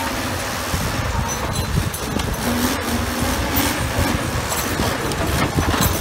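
Diesel engine of a rail-mounted boom machine running steadily as it travels along the track with a battery magnet hanging from its boom; a low rumble under a broad hiss.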